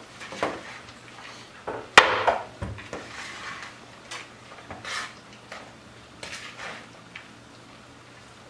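A metal spoon stirring a meat and herb filling in a plastic bowl: irregular scraping and clinking against the bowl, with one sharp knock about two seconds in.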